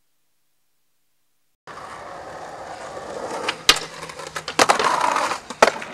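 No sound for the first second and a half, then skateboard wheels rolling on concrete. Sharp clacks of the board hitting come about two, three and four seconds in, with a scraping grind of the board along a concrete ledge between the last two.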